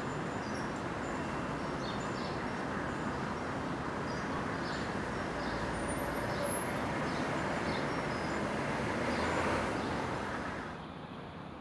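City street ambience: a steady wash of traffic noise with small birds chirping now and then. The noise drops somewhat near the end.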